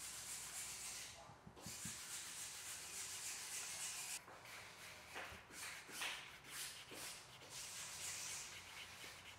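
Wooden burnishing tool rubbed back and forth along the edge of a leather sheath, a faint, high rubbing hiss. It breaks into separate quick strokes about halfway through. This is water burnishing of the freshly beveled edge.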